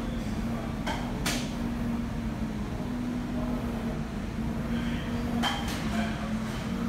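Steady low machinery hum holding one constant pitch, with a few sharp clicks and knocks about a second in and again about five and a half seconds in.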